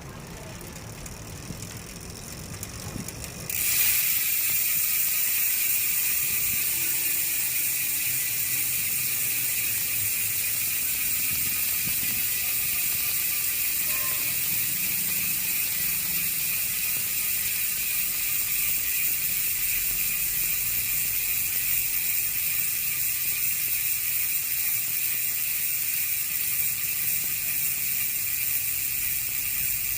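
Koozer XM490 six-pawl rear freehub coasting after being spun up at the hardest pedalling, giving a loud continuous ratcheting buzz of its pawls. The buzz starts suddenly about three and a half seconds in, after a quieter stretch, and eases slightly lower as the wheel slows.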